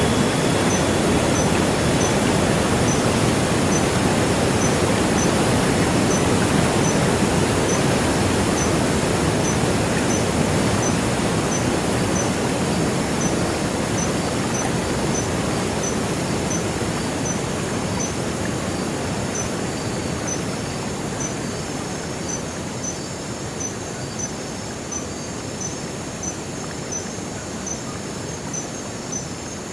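Rushing water of the Sungai Pandan river or waterfall, a dense steady hiss that slowly fades, with a cricket chirping evenly about twice a second in a high, thin pulse throughout.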